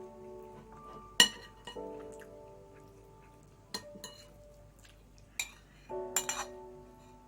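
Several sharp clinks of tableware, the loudest about a second in and a quick run of them around six seconds, over soft piano-like background music.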